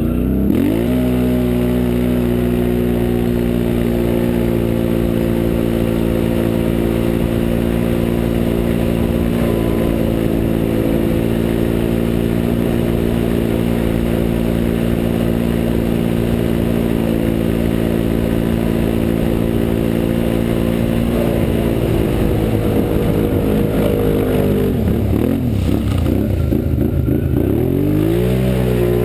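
2012 Can-Am Renegade 1000's Rotax V-twin engine running hard at high revs, its pitch climbing in the first second and holding steady for about twenty seconds. Near the end the revs drop and waver, then climb again.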